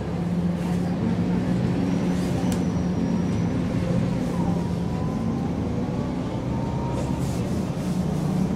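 MAN NG 313 articulated city bus engine running with a steady hum, with a faint whine gliding in pitch about halfway through.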